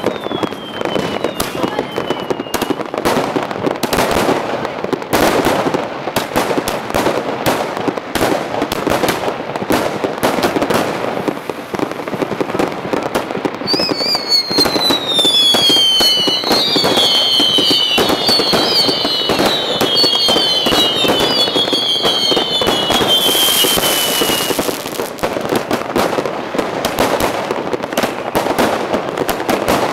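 Consumer fireworks going off: a ground-lit firework shooting stars into the air amid dense, continuous crackling and popping. For about ten seconds in the middle, many whistles fall in pitch, overlapping one another.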